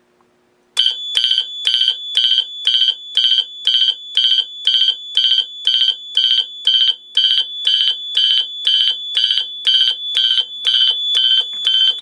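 Wheelock MTWP-2475W multitone horn strobe, on its bell tone setting, sounding in march time, about two loud pulses a second: the fire alarm panel is in alarm. A steady high-pitched tone from the panel's onboard piezo buzzer runs underneath. It starts about a second in and is silenced at the end.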